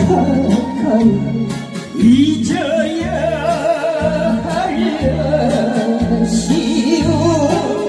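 A man sings a Korean trot song into a microphone, holding notes with a wide vibrato, over a backing track with a bass line and a steady beat.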